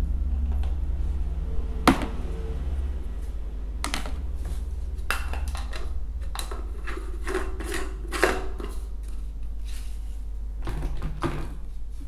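Small glass blender jar and plastic container being handled as dry bird-feed crumble is poured in and the jar's green blade base is fitted: a string of sharp clicks and knocks of glass and plastic, the loudest about two seconds in. A steady low hum runs underneath.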